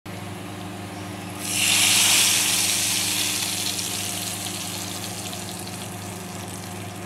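Hot-oil tadka of dried red chillies and garlic poured onto cooked daal, sizzling loudly from about a second and a half in, then slowly dying down, over a steady low hum.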